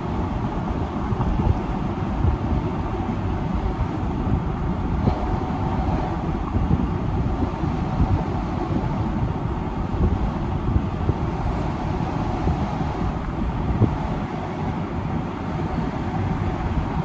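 Road noise of a moving car: a steady low rumble of tyres and engine, heard from inside the car.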